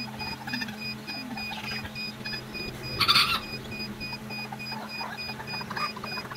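A chick's loud cheep, once, about three seconds in, with a few faint scratchy ticks near the end, over a steady low hum.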